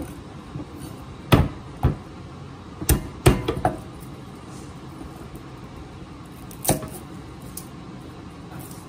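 Chef's knife cutting garlic cloves on a wooden cutting board: about six sharp, irregularly spaced knocks of the blade on the board, most in the first four seconds and one more near seven seconds.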